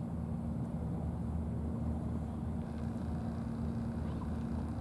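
A steady low hum of an engine running, unchanging throughout.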